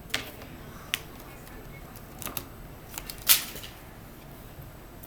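Tarot cards being handled and shuffled: a few sharp card snaps and clicks, the loudest a short rushing slap about three seconds in.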